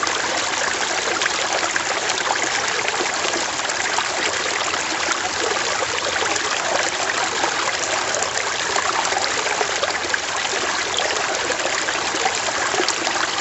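Stream water flowing and splashing over rocks in a steady, unbroken rush with fine trickling detail.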